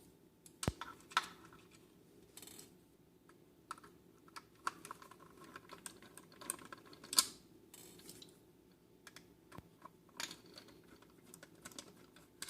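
Scattered light clicks and taps of a small screwdriver on screws and hard plastic, undoing the screws on the back of a BMW E30 instrument cluster. The sharpest click comes about seven seconds in.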